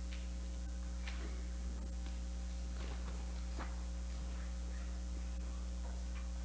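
Steady low electrical hum in the recording, with a few faint clicks or knocks.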